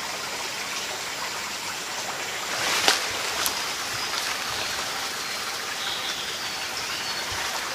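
A steady rushing hiss of background noise, with a sharp click about three seconds in and a smaller one just after.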